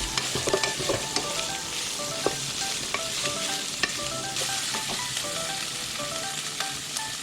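Shredded chicken breast sautéing in melted butter and garlic, sizzling steadily in the pan while a spoon stirs it, with scattered scraping clicks.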